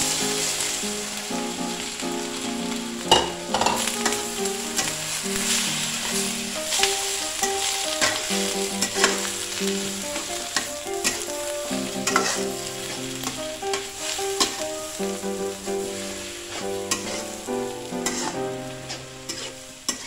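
Stir-fried vermicelli, vegetables and meatballs sizzling in a hot wok as a bowl of caisim greens is tipped in and tossed, with a spatula scraping and clicking against the pan. Soft background music plays underneath.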